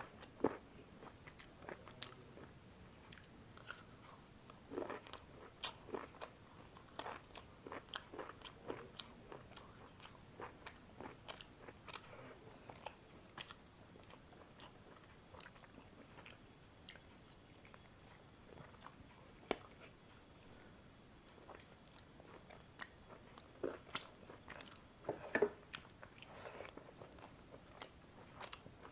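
Close-up eating sounds: a person chewing and biting a curry meal, with irregular wet clicks, lip smacks and occasional crunches.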